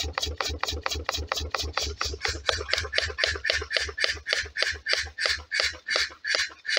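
Homemade wood-fired Stirling engine coasting down after being stopped: its rhythmic beat slows steadily from about six beats a second to about three.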